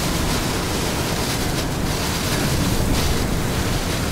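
Strong, gusty storm wind rushing steadily and buffeting the microphone, from the winds around a tornado passing just to the south.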